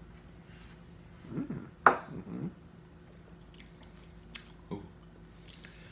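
Mouth sounds of people tasting neat bourbon: sipping, lip smacking and swallowing. About two seconds in there is a short cluster with a low murmur and one sharp smack, the loudest sound. A few faint mouth clicks follow.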